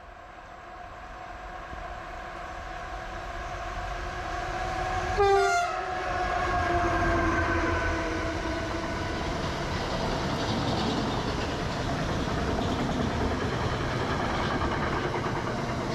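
Electric freight train approaching and passing at speed, getting steadily louder, with a short horn blast about five seconds in as the locomotive goes by and its tones drop in pitch. After that, the long rake of car-transporter wagons rolls past with a steady rumble and wheel clatter over the rail joints.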